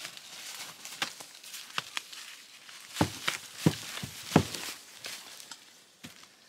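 Dry twigs and leafy branches snapping and rustling as debris is cleared by hand from a cut log, with three sharper knocks of wood about three to four and a half seconds in.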